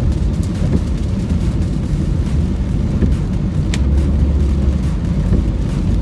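Car driving in heavy rain: a steady low rumble with a few faint ticks, swelling briefly about four seconds in.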